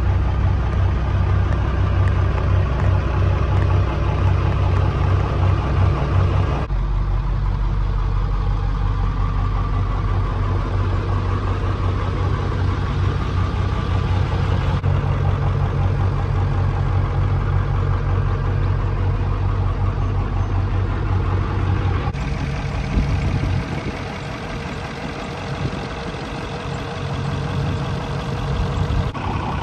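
Two 1990s diesel pickup engines idling, with no emissions equipment: a Dodge Ram's 5.9 L 12-valve Cummins inline-six and an OBS Ford F-250's 7.3 L V8 diesel. The idle is steady and changes abruptly three times as the shot switches.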